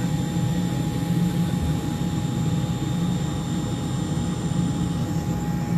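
Steady loud drone of a WP-3D Orion's auxiliary power unit, a small gas turbine, running on the ground, with a thin steady whine over the low hum.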